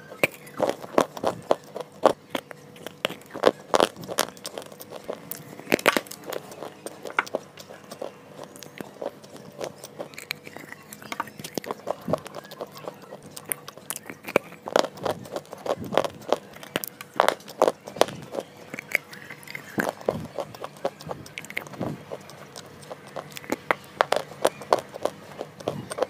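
A person biting and chewing pieces of white slate bar close to a clip-on microphone. The sound is sharp, brittle crunches and snaps that come in irregular runs, bite after bite.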